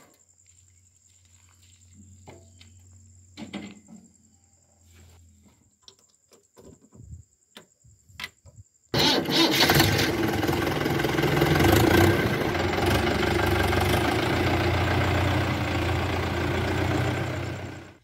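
A few faint clicks, then about halfway in a Mahindra Yuvo 415 DI tractor's four-cylinder diesel engine comes in suddenly and runs steadily at a loud, even level, its fan and belt spinning. It drops away right at the end.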